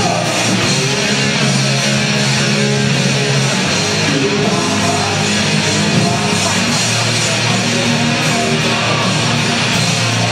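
Loud live rock music with distorted electric guitar, played steadily without a break.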